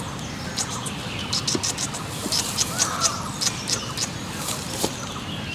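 Birds chirping and calling, a quick scatter of short, sharp high-pitched notes over steady outdoor background noise.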